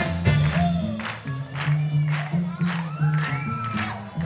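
Live band playing an upbeat instrumental groove: a prominent bass line over drums, with tambourine and hand claps keeping the beat.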